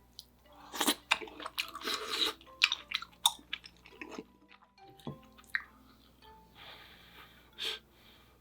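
A person eating close to the microphone: chewing, with a dense run of short clicks and smacking bursts in the first few seconds, then sparser chewing sounds after a brief pause in the middle.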